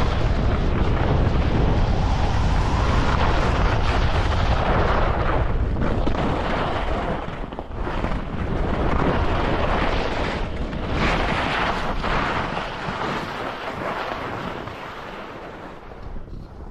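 Wind buffeting the action camera's microphone during a fast ski descent, a heavy rumble, with the hiss of skis scraping over snow swelling at each turn. It eases off toward the end as the skier slows.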